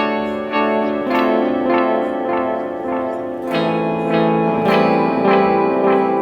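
Framus Idol Maker electric guitar played through a delay-and-reverb pedal: picked notes come about every half second, each ringing on and overlapping with its echoes. A lower note joins about three and a half seconds in.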